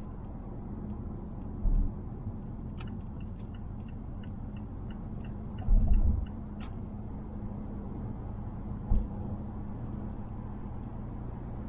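Steady road and engine drone inside the cabin of a 2020 Mazda Atenza (Mazda6) 2.5L at expressway speed, with a few brief low thumps. Near the middle a click is followed by about three seconds of even turn-signal ticking, about three ticks a second, ended by another click.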